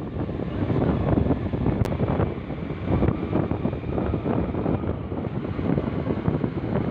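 Wind buffeting the microphone on a moving two-wheeler: a steady rough rush, mostly low in pitch, with road and engine noise beneath it.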